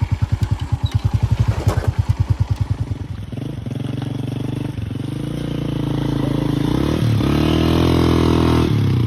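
Small motorcycle engine chugging at low revs with rapid, even firing pulses. About three seconds in it smooths out, then rises in pitch as the bike accelerates, and eases off just before the end.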